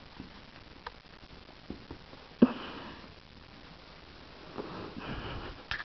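A sleeping pet snoring: two breathy snores, a sharp, loud one about two and a half seconds in and a longer, softer one near the end.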